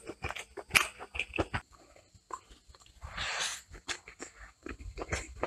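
Close-up eating sounds of a person eating rice and masala chicken by hand: chewing with many short wet clicks and smacks, and fingers mixing rice on a plate. A denser half-second crunch a little after three seconds in.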